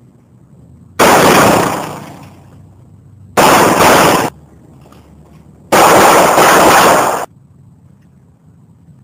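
Handgun fired in three quick strings of shots, each lasting a second or so with the shots running together. The strings start about a second in, at about three and a half seconds, and near six seconds.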